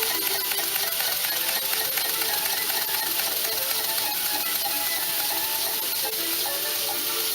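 Small model twin beam engine running with a fast, even mechanical clatter, over background music.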